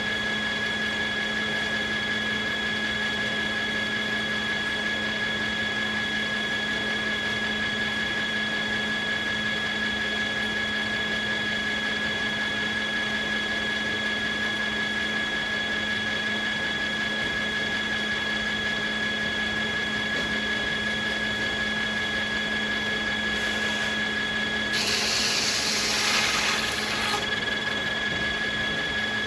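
Sawmill machinery running with a steady high whine. Near the end, a loud rushing burst lasts about two and a half seconds.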